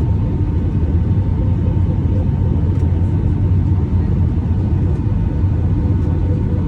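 Steady low rumble inside the cabin of an Airbus A319 airliner, with a faint steady hum on top.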